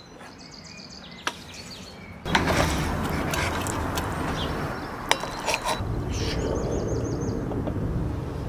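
Wooden spoon scooping menemen from a large pan, with a few clinks of metal serving plates. A steady rushing noise sets in about two seconds in, and birds chirp.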